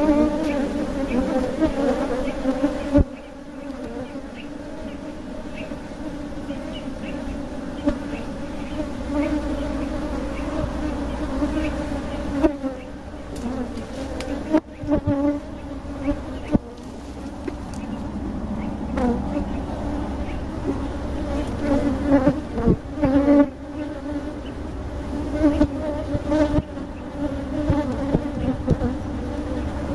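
Honeybees buzzing in a dense cloud around an opened hive: a steady hum that swells and fades, with a few short knocks as the wooden hive box and its metal lid are handled.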